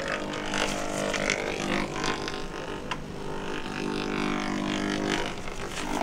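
Steady electrical buzz with many even overtones from a handheld signal detector picking up the emission of a running microwave-oven magnetron. Its strength wavers as the detector is carried about, fading for a moment in the middle and again near the end.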